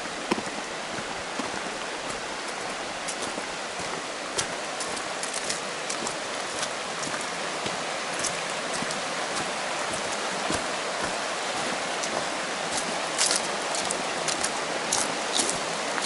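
Steady rushing water noise, with scattered sharp ticks and crackles that come more often near the end.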